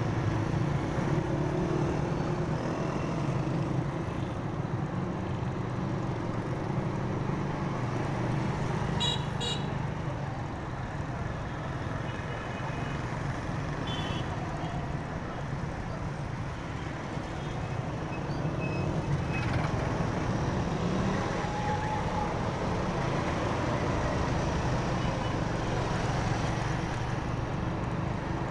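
Honda motorcycle's engine running steadily while riding in city traffic, with road and wind noise. A few short horn toots from surrounding vehicles sound about a third of the way in and around halfway.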